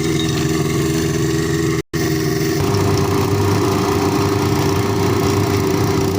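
Welding equipment running with a steady, loud machine hum. It breaks off for an instant about two seconds in, then comes back with a rougher, crackling texture.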